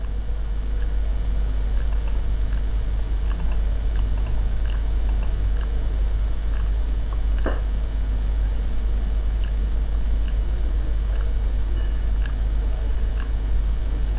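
A steady low hum, the loudest thing throughout, with faint scattered clicks from a computer mouse and keyboard, one slightly louder about halfway through.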